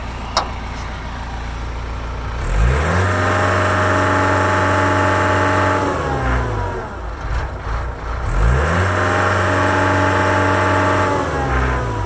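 Diesel engine of a 2001 Cat 262 skid steer loader idling, then revved up twice with the foot throttle. Each time it rises in pitch, holds at high revs for about three seconds and falls back to idle.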